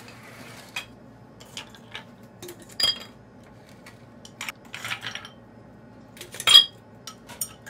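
Ice cubes dropped into a glass jug, clinking against the glass in a series of separate sharp clinks, the loudest about a second before the end.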